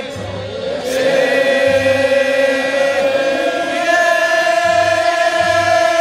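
Many voices chanting together in long, held tones, with a low thump every so often.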